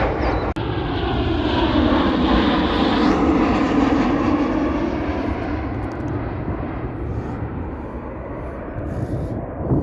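Airliner passing close by with its engines running loud, swelling to a peak a few seconds in and then slowly fading away.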